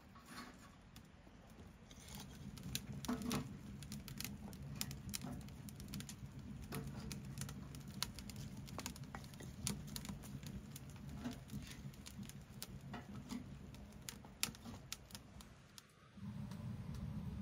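Kindling sticks burning in a small glass-fronted wood stove, crackling with frequent irregular sharp pops over a low steady rumble of the fire.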